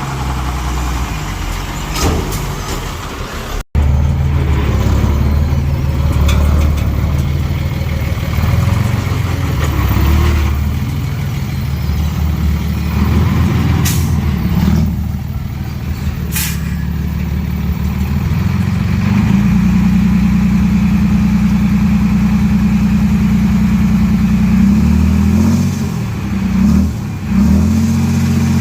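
Heavy diesel earthmoving machinery running under load, the engine's pitch rising and falling as it works, with two short sharp hisses about halfway through.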